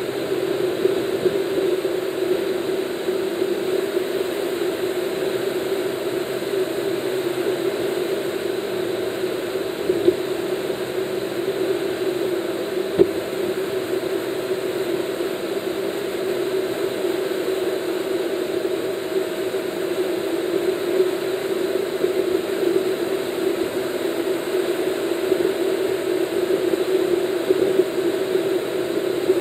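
Steady engine and road noise of a car cruising on a highway, heard from inside the cabin, with two brief clicks about ten and thirteen seconds in.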